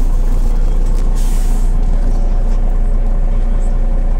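Inside a MAZ 105 articulated city bus on the move: the diesel engine and road noise make a steady low drone. A short hiss of compressed air comes about a second in.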